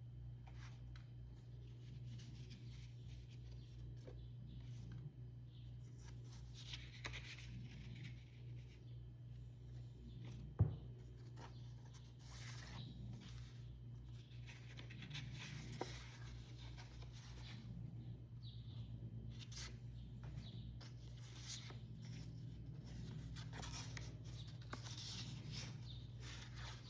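Faint rustling and scraping of paper, as notebook pages are handled and turned, over a steady low hum. A single sharp click about ten and a half seconds in.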